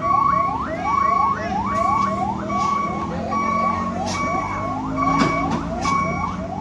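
An electronic warning alarm repeats a rising whoop ending in a held beep, about twice a second, over the low running of a truck's diesel engine. A few sharp clicks come in the second half.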